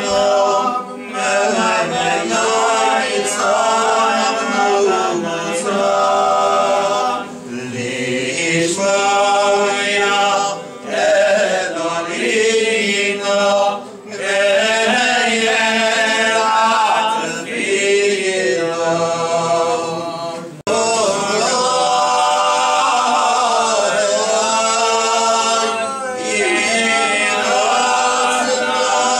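A congregation of men's voices singing a Selichot prayer melody together, unaccompanied, in long phrases with short breaks between them.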